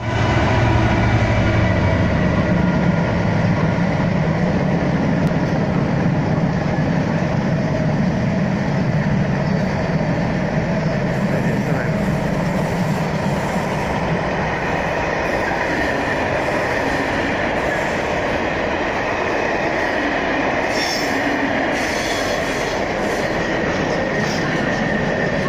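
A Freightliner diesel locomotive passing close by, its engine making a strong low rumble for the first few seconds. A long freight train of container wagons then rolls steadily past on the rails, with thin high wheel squeal running through the rolling noise.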